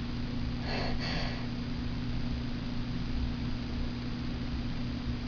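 A quick double sniff through the nose about a second in, from someone trying to tickle out a sneeze with a bobby pin; no sneeze comes. A steady low electrical hum and hiss runs underneath.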